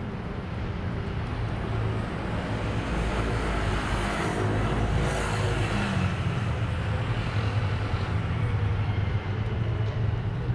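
A van pulling away and driving off, its engine and tyre noise swelling for a few seconds in the middle and then easing, over steady city traffic.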